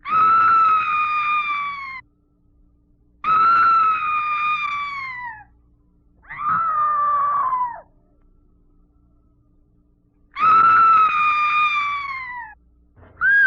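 High-pitched screams as a haunted-house sound effect: four long screams of about two seconds each, separated by short gaps, the pitch holding and then dropping off at the end of each, then a short, sharp shriek near the end.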